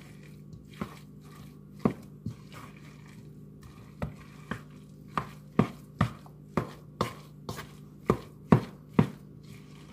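A spoon knocking against a mixing bowl while stiff mashed potatoes are mixed with butter: a run of sharp clacks, only a few at first, then about two a second from about four seconds in.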